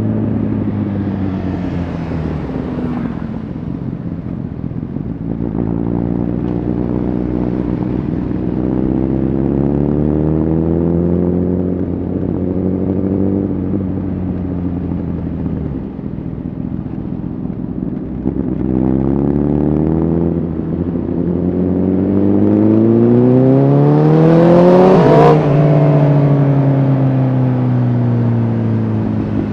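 Honda CBR1000RR Fireblade's inline-four engine through an aftermarket Shark Factory exhaust, under way. The revs rise and fall in long sweeps, climbing hardest to a high peak about 25 seconds in and then falling away.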